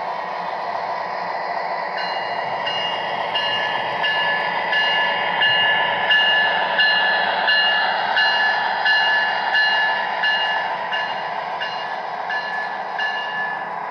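Sound system of an MTH Rail King O scale SD60 model diesel locomotive with Proto-Sound 3.0: a steady diesel engine rumble mixed with the model running on its track, and from about two seconds in a locomotive bell ringing evenly, about one and a half strikes a second, stopping just before the end.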